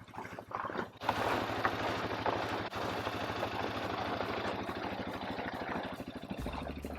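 A motor vehicle's engine running with an even, fast pulsing; about a second in, a loud rushing noise joins it. Background music comes in near the end.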